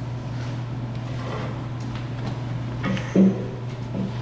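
Steady low hum, with a brief knock about three seconds in and a fainter one near the end.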